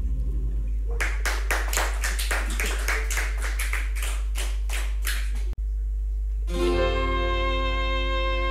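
A few people applauding, clear separate claps for about four seconds after the last chord of a folk song dies away; the clapping cuts off abruptly, and a fiddle starts the next tune with long bowed notes near the end. A steady low hum runs underneath.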